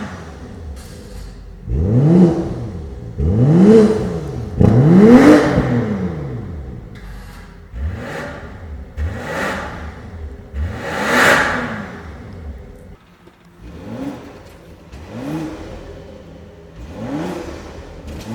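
BMW X5 50e's turbocharged straight-six revved again and again through its DCE Parts exhaust. The short blips rise and fall in pitch: three big revs come first, then a series of smaller, quieter ones.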